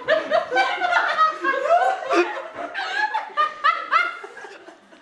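Laughter and chuckling in response to a joke, in short bursts that die down near the end.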